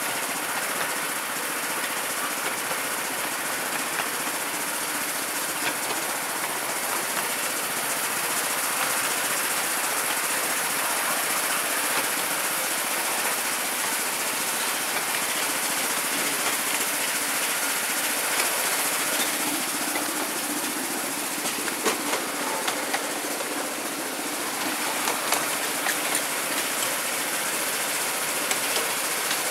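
A miniature railway train running along its track, heard from an open passenger carriage: a steady running noise of the wheels on the rails with a hiss, and scattered short clicks, more of them in the second half.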